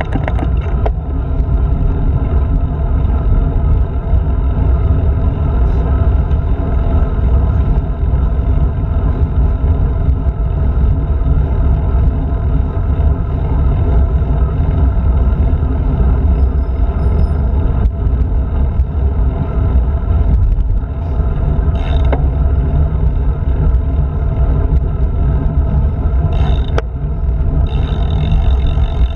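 Wind buffeting the microphone of a handlebar-mounted action camera on a road bike ridden at speed, over a steady hiss of tyres on asphalt. A few short clicks come near the end.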